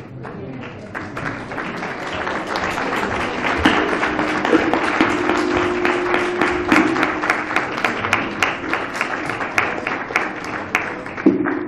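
Audience applause: many people clapping. It builds up about a second in, stays full through the middle and thins out near the end.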